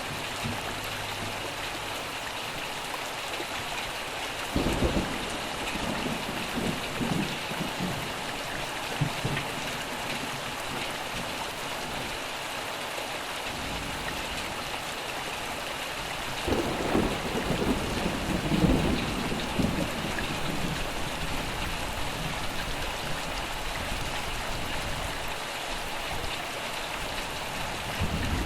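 Steady rain falling, with thunder twice: a sudden clap about five seconds in that rumbles briefly, and a longer rumble from about sixteen to twenty seconds in.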